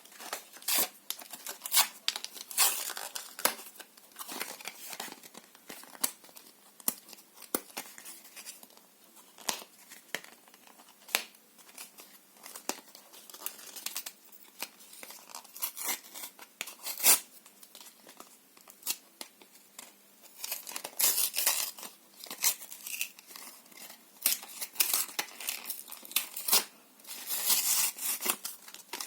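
Paper and cardboard being torn by hand close to the microphone: irregular rips and crinkling crackles with sharp snaps, in denser runs of tearing a few times.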